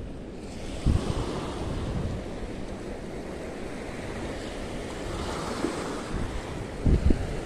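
Small waves washing onto a sandy beach, with wind buffeting the microphone; the wind thumps are loudest about a second in and twice near the end.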